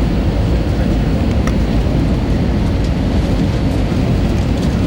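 Steady rumble inside the cabin of an Airbus A320-214, from its CFM56 jet engines and the airflow past the fuselage. The rumble is heaviest in the low end and holds an even level throughout.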